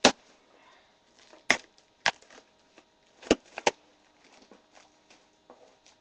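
Sharp snaps and knocks from a taped cardboard box being forced open: about five loud cracks, with fainter clicks and rustles between them.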